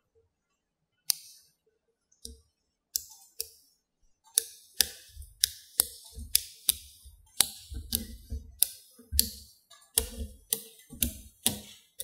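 Small neodymium magnetic balls clicking sharply as they snap onto one another, set one at a time into a flat hexagon. The clicks are sparse at first and come about two a second from about four seconds in.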